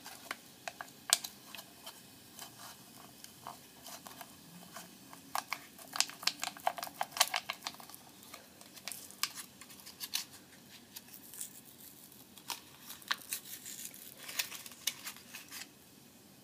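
Bubbling liquid in a glass vessel, popping and fizzing as irregular sharp clicks and crackles that come thickest in two spells, through the middle and again near the end.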